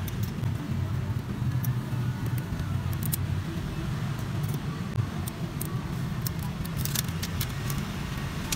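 Steady low hum under scattered light clicks and taps as a phone's back cover is handled and pressed down by hand and its protective film is peeled off.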